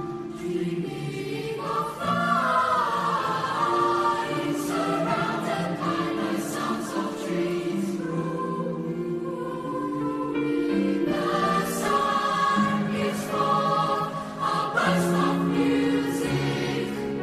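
Mixed youth choir of girls' and boys' voices singing held chords in several parts, growing louder about two seconds in.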